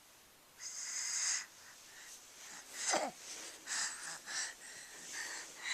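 A person's breathy, wheezing breaths: a hissing breath about half a second in, a short sharp vocal sound falling in pitch about three seconds in, then several quick breathy puffs.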